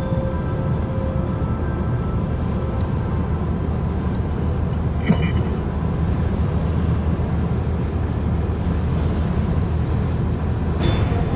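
Steady road noise of a car travelling at highway speed, heard inside the cabin: a low rumble of tyres and engine, with a single short click about five seconds in.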